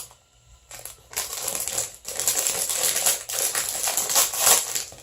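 Plastic candy packaging crinkling and crackling as it is handled and opened, starting about a second in and getting loudest near the end.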